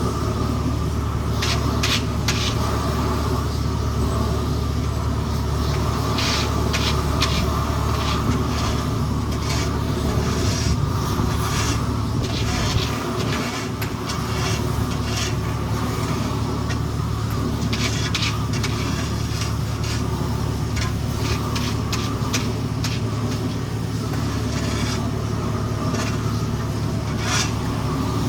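Engine of heavy asphalt-paving equipment running steadily with a low hum, briefly dipping about halfway through. Short scrapes come and go over it.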